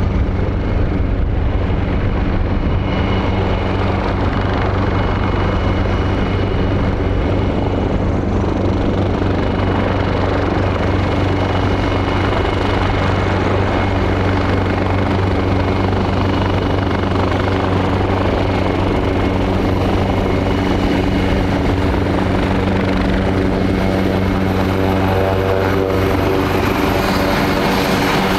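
AgustaWestland AW189 helicopter running on the ground: the steady low beat of the turning main rotor over the sound of its twin turboshaft engines, with a high whine in roughly the first ten seconds. In the last few seconds, as the helicopter turns its tail toward the camera, a buzzier tone comes in.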